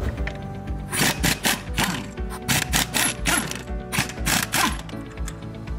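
Powered socket wrench with an 18 mm socket running in about ten short bursts of rapid ratcheting, undoing the engine mount nuts. Background music with a steady beat plays under it.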